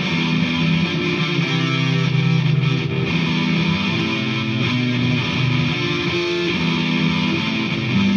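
Vintage V100 Les Paul electric guitar played through a DigiTech GNX3 distortion patch into an H&K Attax amp: a riff of mostly low, sustained notes with heavy distortion.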